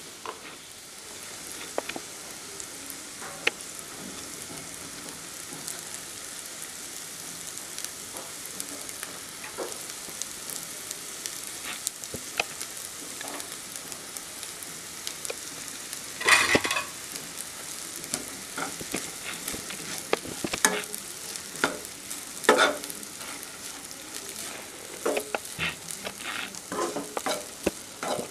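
Sliced onions, curry leaves and dried red chillies sizzling in oil in a non-stick kadai. About halfway through, cooked rice goes in and is stirred with a spatula, which scrapes and knocks against the pan several times, the loudest sounds.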